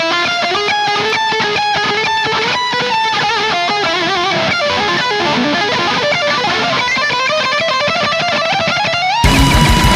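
BC Rich Warlock electric guitar playing a fast lead line of single notes with string bends and vibrato. About nine seconds in, a heavy backing with deep low end and a steady beat comes in while the guitar holds one long note.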